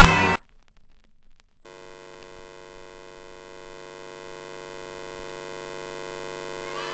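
Loud music cuts off abruptly, and after a second of silence a steady electrical hum with many overtones fades in from the television showing colour bars, growing slowly louder.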